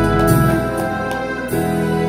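Yamaha Clavinova digital keyboard playing held chords in an instrumental passage, with no singing. The chord changes about one and a half seconds in.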